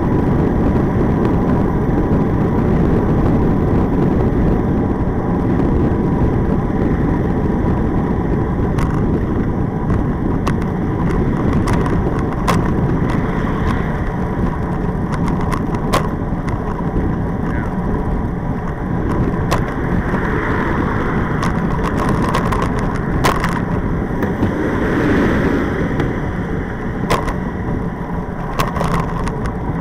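Steady wind and road rush from a camera mounted on a moving tandem bicycle, with scattered sharp clicks and knocks as the wheels run over cracks and bumps in the asphalt.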